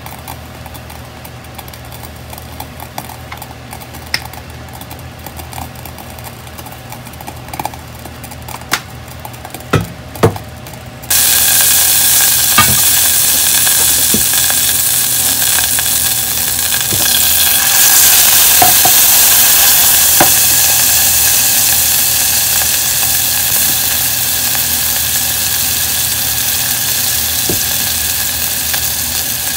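Low steady hum of an induction hob with a few sharp clicks, then about eleven seconds in a sudden loud sizzle as chopped green onion, ginger and garlic hit hot oil in a saucepan; the sizzle carries on, easing off slowly.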